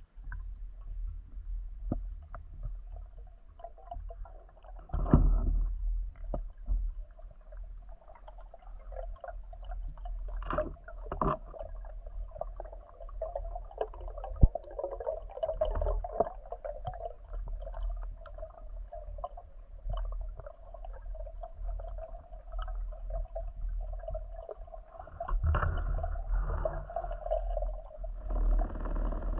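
Muffled underwater sound of lagoon water moving around a spearfishing diver: a steady low rumble with gurgling and scattered clicks, and louder splashy surges about five seconds in, around ten to eleven seconds, and near the end.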